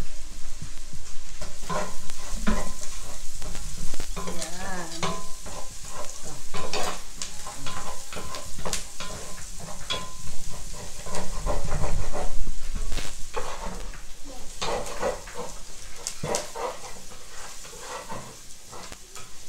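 Chopped onion and garlic sizzling as they are sautéed in a pot, with a wooden spatula scraping and knocking against the pot in short strokes as they are stirred.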